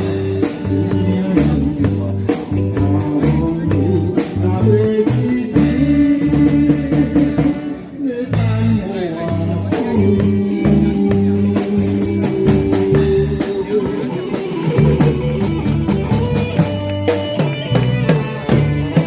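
A band playing a song: drum kit keeping a busy beat under bass notes and guitar, with a brief drop in loudness about eight seconds in.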